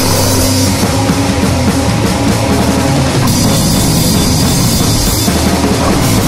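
Loud, dense heavy rock music with a drum kit playing hard; the sound shifts about three seconds in.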